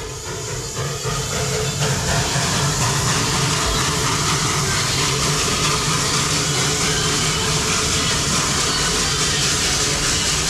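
Narrow-gauge steam locomotive hissing steam: a loud, steady hiss over a low rumble, swelling over the first couple of seconds and then holding.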